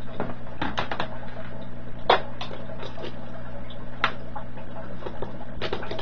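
Scattered light clicks and knocks of a sheet-metal project box and small parts being handled on a workbench, the sharpest about two and four seconds in, over a steady low hum.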